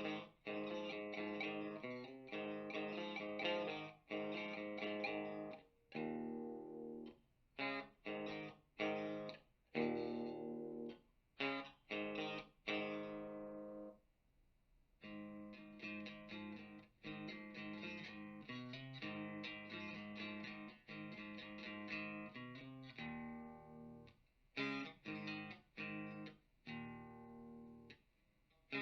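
Electric guitar played through an amp and speaker cabinet: chords and riffs with sharp stops and short rests between phrases.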